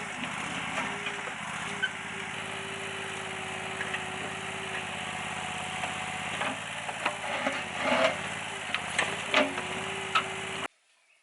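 A small engine running steadily, with scattered knocks and clanks over it in the second half, cutting off abruptly near the end.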